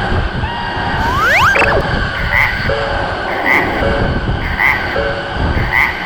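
Japanese railroad crossing warning alarm ringing in a steady two-tone beat, a little under one cycle a second, over the low rumble of a train. A quick rising whistle-like tone sounds about a second in.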